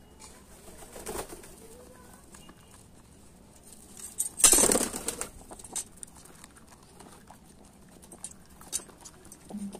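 Pigeons feeding on scattered peanuts on concrete: scattered sharp pecking taps, and a loud flurry of wing flapping about halfway through.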